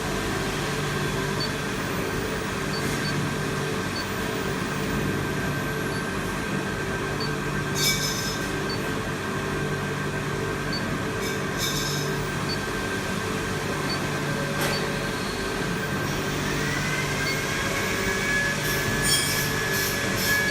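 IPX4 rain test chamber running: water spraying from the swinging spray pipe, over a steady machine hum with a constant high whine and a low hum that pulses every couple of seconds. A few brief clicks about a third and halfway through.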